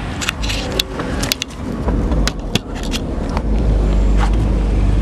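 Handling knocks and scrapes as a camera is set down on wooden railroad ties and ballast, over a steady low rumble that grows louder about three and a half seconds in.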